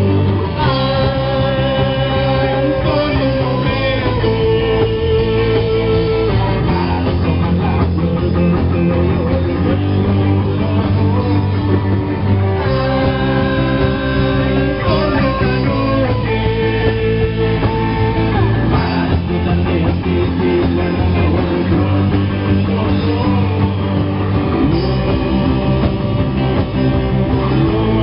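Live rock band playing loud: bass guitar and electric guitar with a singer at the microphone, long held notes wavering in pitch.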